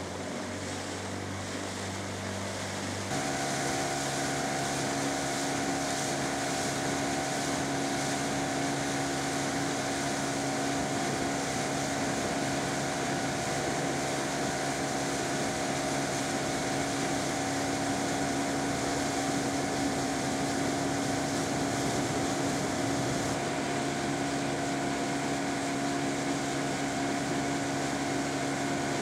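A motorboat's engine runs steadily, a hum of several tones over a hiss of wind and water. About three seconds in it gets louder and its hum changes pitch, then holds steady.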